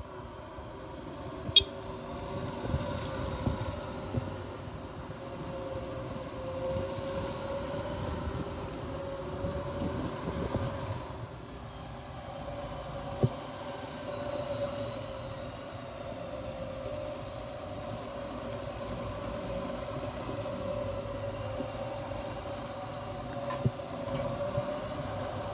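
A motor vehicle driving along, with a steady engine drone and road noise and a few sharp clicks scattered through it.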